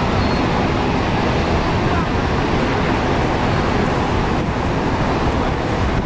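Niagara's Horseshoe Falls: a loud, steady rush of water pouring over the brink and churning through the rapids above it, with no change from start to end.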